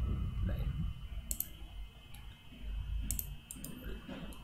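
Computer mouse clicks: one a little over a second in, then a quick run of several around three seconds in, over a low steady room hum.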